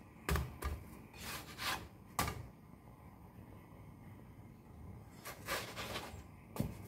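Slotted spatula scraping and pressing a potato flatbread around a nonstick frying pan as it is turned and puffs up: a string of short rubbing strokes, some with a soft knock, bunched in the first couple of seconds and again near the end.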